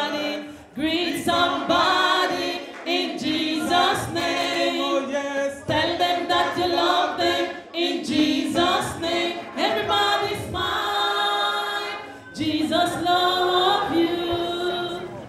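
A church congregation singing a gospel chorus together, many voices in harmony, in phrases of about two seconds each.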